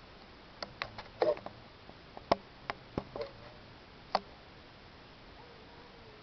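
About ten sharp clicks and snaps, irregularly spaced over three and a half seconds, a few with a brief ringing tail, then only a faint steady background.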